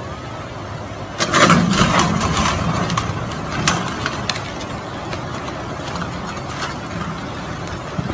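Muddy floodwater rushing steadily. A wooden bridge is breaking up in the current: a loud burst of cracking and knocking starts about a second in and thins to scattered clicks over the next few seconds.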